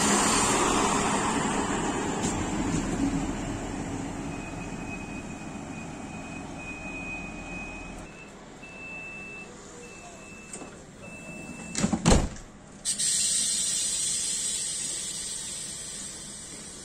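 DB class 628 diesel railcar rolling in and braking to a stop, with a thin high squeal in the last seconds of braking. A run of short high beeps follows, then a loud door bang and a rush of hissing air that fades away.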